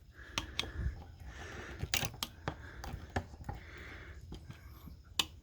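Scattered sharp clicks and taps with light scraping: metal and plastic parts of an electronic drive unit being handled and pried open.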